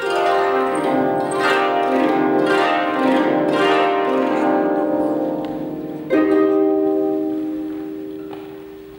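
Koto ensemble of four koto and a seventeen-string bass koto (jūshichi-gen) playing: a loud plucked entry right at the start, a busy run of plucked notes for about five seconds, then one strong chord about six seconds in that rings and slowly fades.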